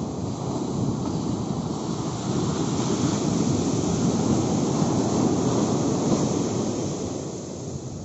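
Sea surf rushing as a wave breaks on the shore, swelling to its loudest in the middle and easing off near the end.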